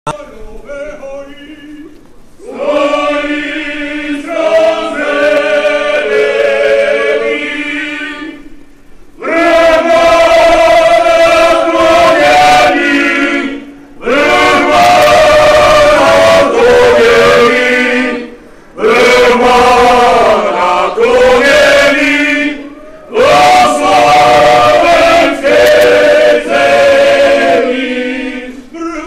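Male folk choir singing together in loud, sustained phrases of a few seconds each, with short breaks between phrases.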